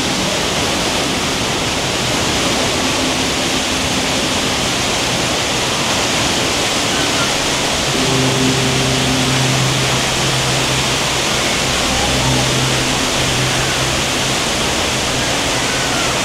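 Steady, loud rush of falling water.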